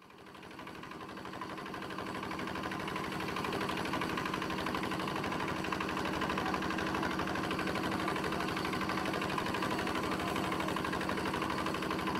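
Longtail boat's engine running steadily with an even, fast beat, fading in over the first couple of seconds.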